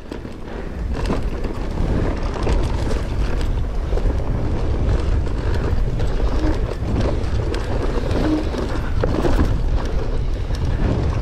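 Mountain bike descending loose, rocky singletrack: a steady wind rumble on the helmet or chest microphone, with frequent clicks, knocks and rattles from the tyres and bike going over rocks and bumps.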